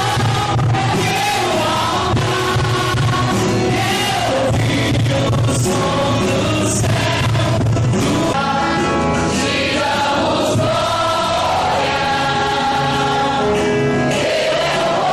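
Gospel worship music: a group of voices singing a song together over instruments, steady and loud.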